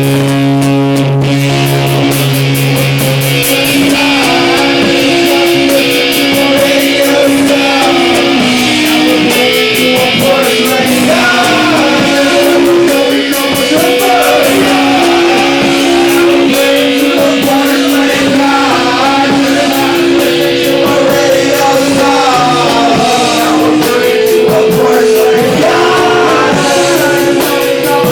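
A live rock band playing loud, with guitar and a singer.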